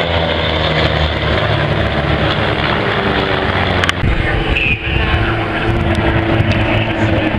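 Aircraft engine running loudly and steadily, with an abrupt change in the sound about four seconds in.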